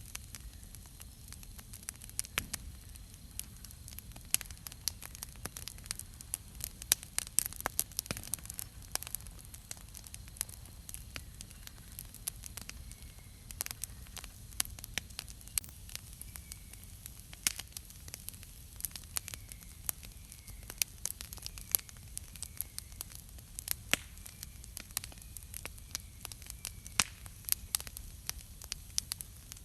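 Wood campfire crackling, with sharp irregular pops from the burning logs. A faint short chirp repeats about once a second through the second half.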